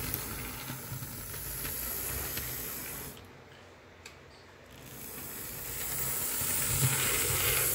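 Running gear of an HO-scale Athearn Blue Box SDP40 chassis with its large gray open-frame motor: a steady whirring hiss of motor and gears with the wheels on the rails. It stops for about a second and a half a little after three seconds in, then starts again and grows louder.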